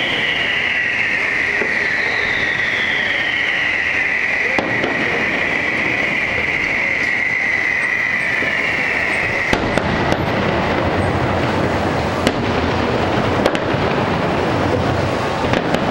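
Fireworks display: a high whistling tone slides slowly lower over a steady crackling rush and cuts off suddenly about nine seconds in. After that the rush grows fuller and deeper, with a few sharp pops near the end.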